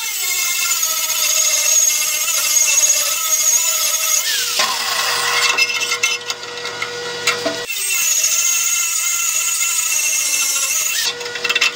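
Angle grinder with a flap wheel grinding paint off a steel plate down to bare metal, ready for welding. It grinds in two bouts: it stops about four and a half seconds in, then starts grinding again about three seconds later and stops near the end.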